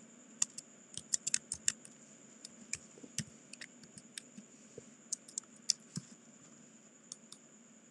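Typing on a computer keyboard: an irregular run of light key clicks as a password is typed in, over a faint steady high-pitched whine.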